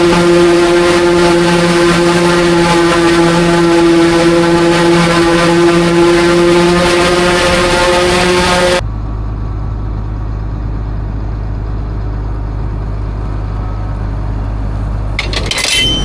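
Forage harvester running steadily under load while chopping corn silage, a loud even whine with a hiss over it. About nine seconds in it cuts off abruptly, giving way to a quieter, deeper steady engine drone with a few clicks near the end.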